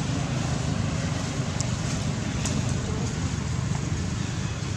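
Steady outdoor background noise: a low rumble with an even hiss over it and a few faint ticks.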